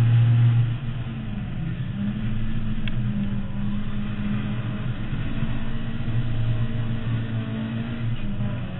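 Ford Mk2 Escort's 2.0-litre Pinto four-cylinder on twin 45 carburettors, heard from inside the cabin while being driven hard on track. The engine is loudest for the first second, drops suddenly just before a second in, then holds a steady note.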